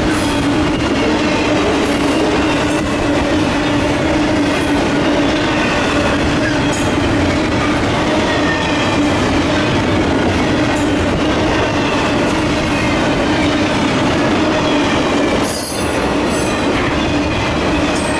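Florida East Coast Railway freight train's double-stack container and trailer flatcars rolling past at track speed: a loud, steady rumble and rattle of steel wheels on rail with a steady hum and a faint high wheel squeal. A brief dip in the noise about fifteen seconds in.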